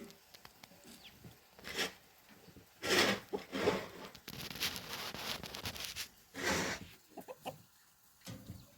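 Farm animals calling: several short separate calls, with a stretch of steady noise in the middle.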